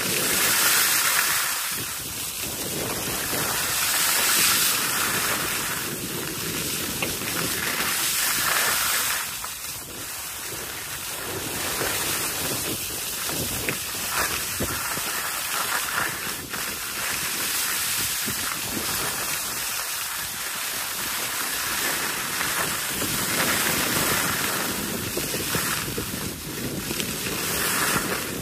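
Wind rushing over the microphone of a moving skier, mixed with the hiss and scrape of skis sliding on packed snow, swelling and easing every few seconds.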